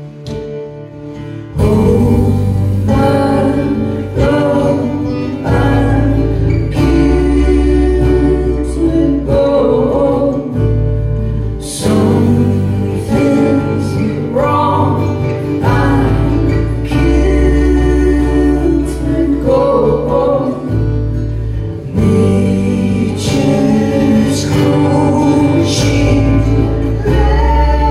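Live band playing a song on acoustic guitars, bass guitar and drums, with sung vocals. It is quieter at first, and the full band comes in loud about a second and a half in.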